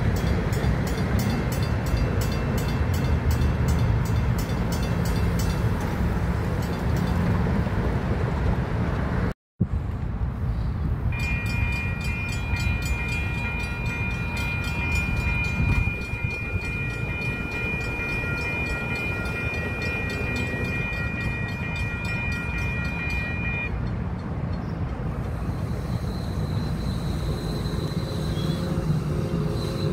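A DART light-rail train passes a grade crossing while the crossing's mechanical bell rings in rapid, even strikes. The bell keeps ringing while the gates rise, then stops about two-thirds of the way through. Near the end another crossing's warning bell starts up.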